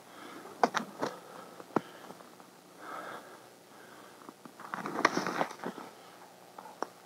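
A man's breathing and sniffs close to a body-worn microphone, with a few sharp clicks and a burst of rustling about five seconds in.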